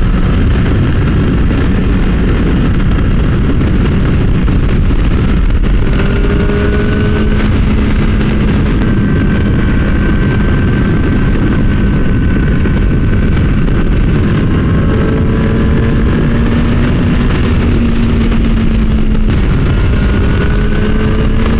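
Kawasaki ZX-10R inline-four sportbike engine cruising at a steady speed, heard from the rider's microphone under a constant rush of wind and road noise. The engine note holds steady, with only slight rises and dips in pitch.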